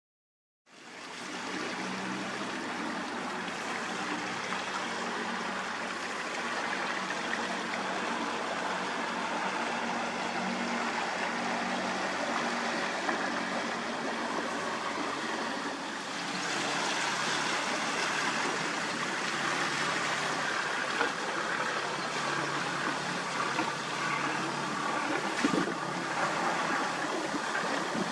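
Steady rush of fast-flowing river water at a bridge, with a boat's engine running low and steady underneath for the first half. The sound changes abruptly about halfway through, leaving the water.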